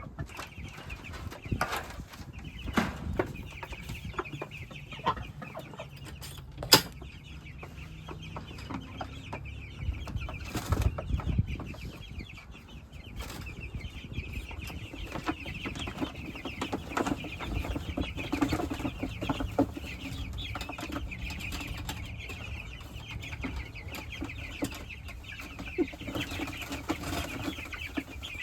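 Flock of young meat chickens peeping and cheeping continuously in high chirps, with scattered knocks and rustles and one sharp knock about seven seconds in.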